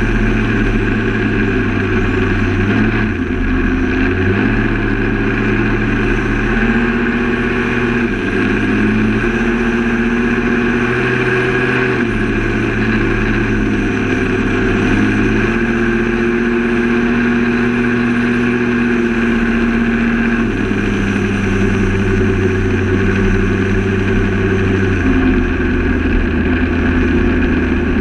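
Outboard engine of an Allison XB2002 performance boat running at speed, with wind and rushing water. The engine note holds steady, shifting slightly up or down a few times.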